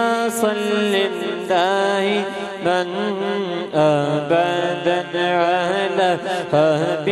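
A man singing a naat solo into a microphone: a long, ornamented unaccompanied vocal line that bends and wavers in pitch, over a steady low drone.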